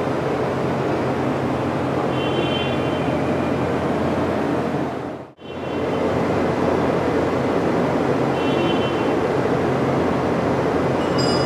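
Steady drone of running machinery in a large machine shop, with a low hum underneath and faint high squeals now and then. The sound drops out for a moment about five seconds in.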